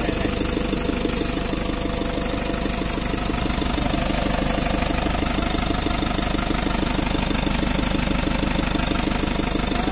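Toyota Hiace van engine idling steadily, with an even running pulse and a slight rise in level about four seconds in.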